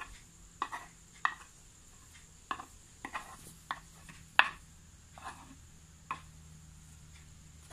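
Metal spoon scraping and clacking against the inside of a mortar while stirring pounded manioc leaves, about eight short irregular strokes, the loudest about four and a half seconds in.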